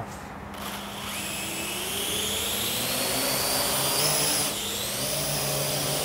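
Parrot AR.Drone 2.0 quadcopter's four motors and propellers spinning up for takeoff while carrying a 200-gram payload. The whine starts about half a second in and rises in pitch as the drone lifts off, then holds as a steady high buzz with one brief dip. The drone is handling the load fine.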